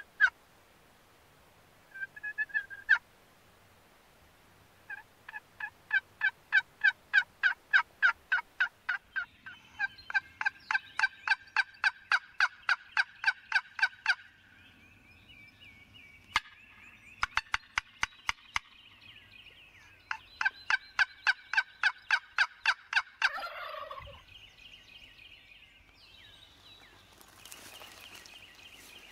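Turkey yelping: several long runs of rapid, evenly spaced yelps, about four a second, with a few sharp clicks midway.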